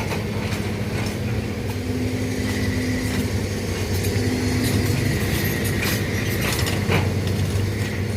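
Hydraulic excavator's diesel engine running steadily, with a high whine coming and going twice and occasional sharp knocks.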